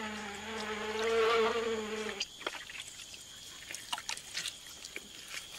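A flying insect buzzing close by, a steady hum that cuts off suddenly about two seconds in. Then a few faint scattered splashes and squelches of capybaras wading through mud at the water's edge.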